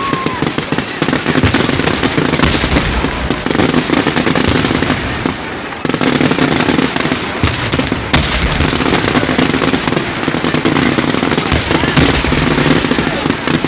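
Firecrackers crackling and popping in a dense, continuous string, with a crowd's voices underneath. The crackle eases briefly about six seconds in, then comes back sharply with a loud crack.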